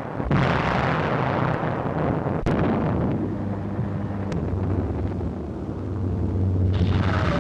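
Air-raid sound effects on an old film soundtrack: a sudden blast-like rush of noise that dies away over about three seconds, over a steady low engine drone of aircraft.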